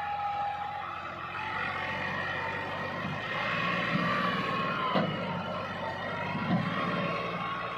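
Massey Ferguson tractor's diesel engine running under load while pulling a heavily loaded trolley, with a steady whine over the engine note that wavers slightly in pitch. Two short knocks come about five and six and a half seconds in.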